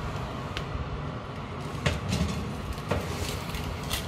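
A metal pizza pan being pulled out of a hot oven over the wire rack, with a few sharp metallic clicks and knocks about a second apart over a steady low rumble.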